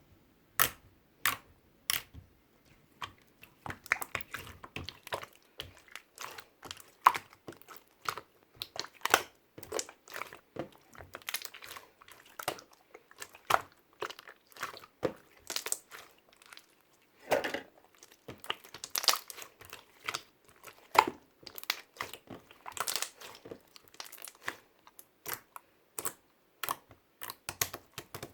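Close, irregular crinkling and crunching clicks, several a second and uneven in loudness, with no steady background sound.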